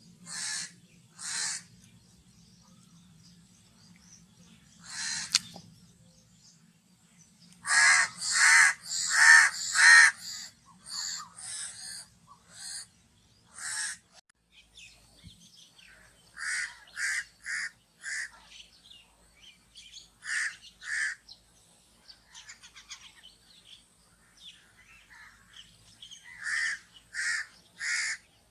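Crow cawing in runs of short, harsh calls repeated in quick succession, with the loudest run of about five caws eight to ten seconds in and shorter runs of three or four caws after that.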